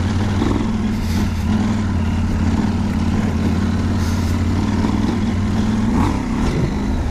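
KTM 790 Adventure R's parallel-twin engine running steadily as the bike is ridden off-road.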